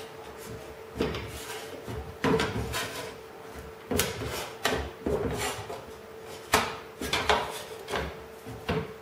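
Aluminium sheet-metal nose rib knocking and rattling against a wooden hand bending tool and the workbench top as its edge flange is levered over to take the bow out of the rib. It comes as a string of irregular sharp knocks, about one a second.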